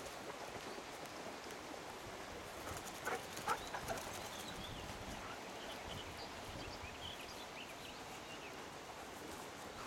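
Quiet outdoor ambience: a steady hiss, with a couple of short knocks about three seconds in and faint, high chirps through the middle.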